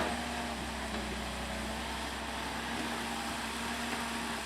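CAT excavator's diesel engine running at a steady speed, with a short knock right at the start.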